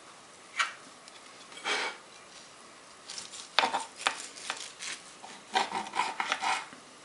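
A large kitchen knife sawing through the end of a crusty loaf of cattail-flour bread on a plastic cutting board: a quick run of short rasping strokes and clicks over a few seconds. A light knock and a brief rustle from handling the loaf and knife come before it.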